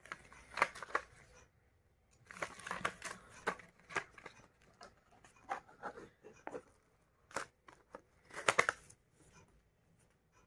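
A Pringles can being opened by hand: the plastic lid and foil seal pulled and peeled off in several short spells of crinkling, tearing and clicking, the loudest about half a second in and about eight and a half seconds in.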